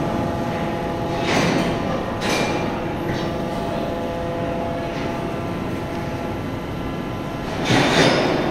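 Rotary wagon tippler machinery in a coal-handling plant, running with a steady industrial hum made of several held tones. Short rushes of noise come over it about a second in, again at two seconds, and most loudly near the end.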